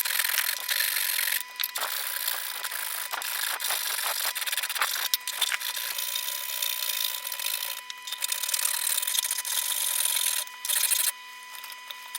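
Hand tool rasping in repeated scraping strokes, with short pauses, stopping about eleven seconds in.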